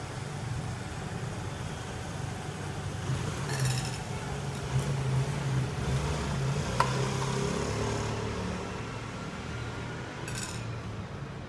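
Steady low background rumble, like distant traffic or room noise, with three light clinks, like glass or dishes, spread through it; the middle one is the sharpest and rings briefly.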